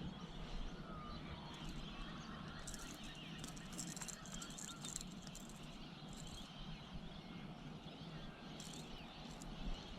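Faint outdoor lakeside background with a few short, distant bird chirps and a patch of high crackling a few seconds in.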